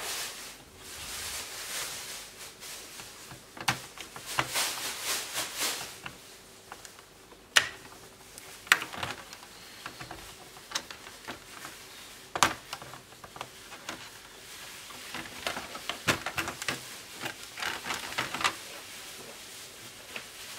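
Hands working a small screwdriver on a laptop's plastic casing and screws: scattered sharp clicks and knocks, with stretches of scraping and rattling of plastic parts. A few of the clicks, in the middle, stand out as the loudest.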